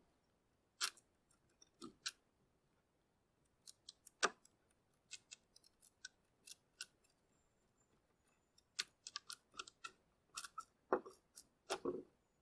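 Scattered sharp clicks, cracks and knocks of old rotten roof boards and roofing being pried up and broken with a hand tool, in no steady rhythm; the loudest knocks come about four seconds in and near the end.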